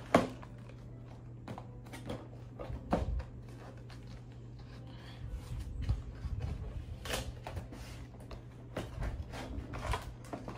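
Hands handling and opening a cardboard LEGO set box on a tabletop: scattered light taps, knocks and scrapes of cardboard, with a longer scrape a little past the middle.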